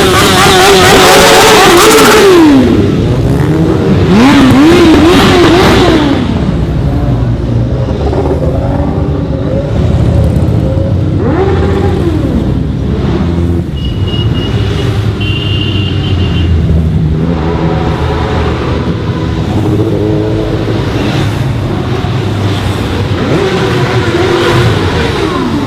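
Motorcycle engines revving, their pitch climbing and dropping again and again, loudest in the first six seconds.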